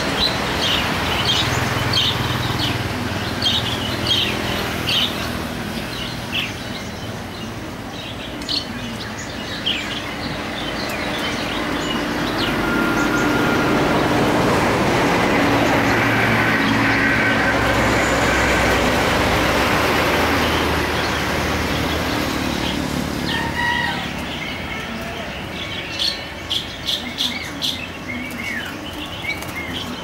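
Short, high chirps of small birds, repeated irregularly and bunching into quick runs near the start and near the end, over a continuous rushing background noise that swells for several seconds in the middle.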